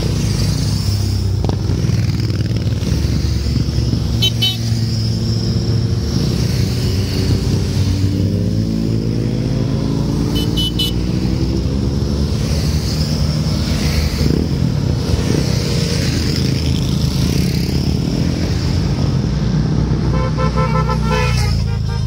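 Motorcycles in a long procession riding past one after another, their engines running loud and continuous, with pitch shifting as each bike goes by. Short horn toots sound about four seconds in, about ten seconds in, and again near the end.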